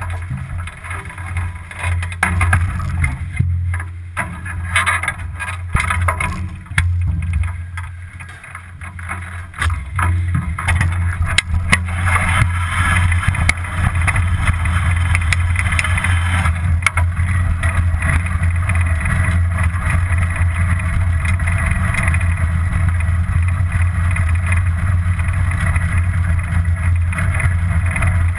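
Bicycle ride heard through an action camera's microphone: wind buffeting the mic and tyre and road noise, a low rumble under a steady rush. Scattered knocks and rattles over about the first ten seconds, then the rush grows steadier and a little louder.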